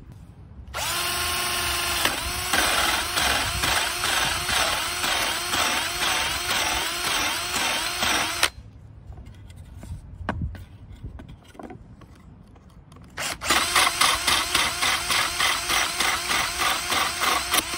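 Milwaukee cordless drill turning a small plug cutter into an old wooden floorboard, cutting a plug. It starts about a second in and runs under load for several seconds, its pitch dipping and recovering over and over as the cutter bites. After a short pause it runs again near the end. The small cutter is overheating.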